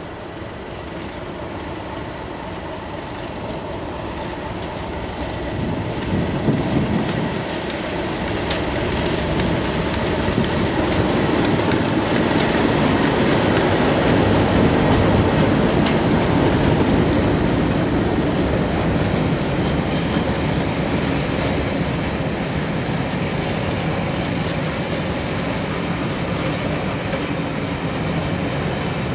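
Class 37 diesel locomotive 37706, with its English Electric V12 engine, approaching and passing close by at speed. It grows louder to a peak about halfway through, then gives way to the steady wheel clatter of passenger coaches running past on the rails.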